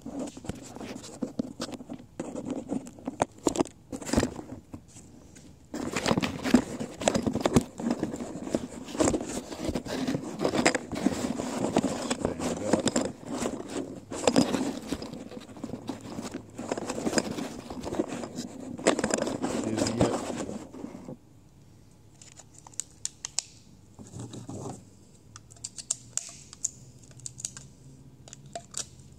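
Plastic crinkling and rustling from close handling, with scattered clicks and knocks; it turns loud about six seconds in and goes on for about fifteen seconds, then drops to occasional light clicks.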